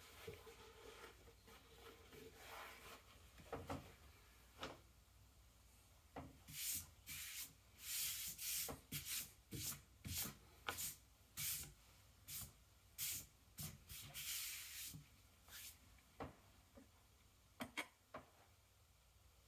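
Hands sliding and rubbing over quarter hides of Ponte Wax waxed leather as they are rolled up and smoothed flat. A run of short, faint brushing strokes with a few light taps comes mostly through the middle.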